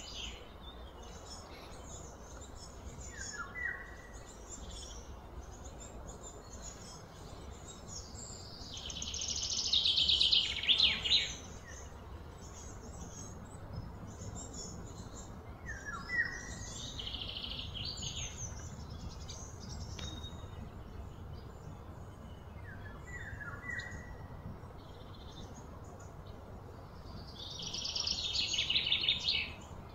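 Wild birds calling: short high chirps every several seconds and two louder rapid chattering bursts of about three seconds each, one about nine seconds in and one near the end, over a low steady rumble.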